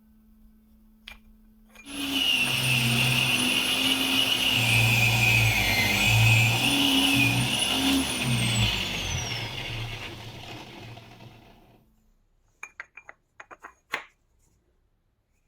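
An electric power tool switches on about two seconds in and runs with a high whine and an uneven, changing note, as if under varying load. It is switched off and winds down, the whine falling in pitch, followed by a few light clicks near the end.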